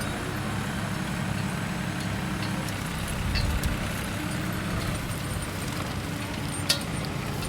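Vintage tractor engine running steadily with an even, throbbing beat, and a brief sharp click about two-thirds of the way through.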